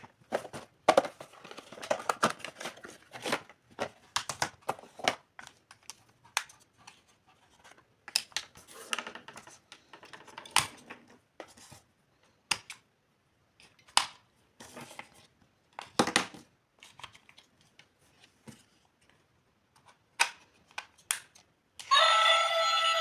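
Unboxing of a miniature toy kitchen set: packaging rustling and tearing, with scattered sharp clicks of small toy pieces being handled, in short irregular bursts. About a second before the end a loud voice starts.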